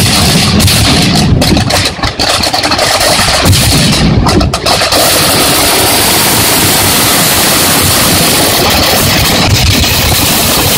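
Fireworks going off in a dense, rapid barrage of bangs and crackling. Separate bangs in the first few seconds merge, from about five seconds in, into one unbroken din of crackling explosions.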